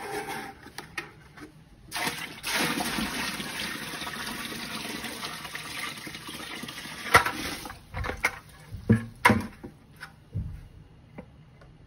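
Water poured from a plastic 5-gallon bucket into a sump pit, a steady splashing gush lasting about five seconds as the pit fills. A sharp click and a few knocks follow near the end.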